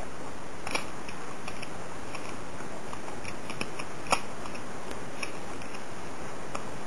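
Hands handling a plastic Bakugan Spin Dragonoid toy: a few faint, short plastic clicks, the sharpest about four seconds in, over a steady hiss.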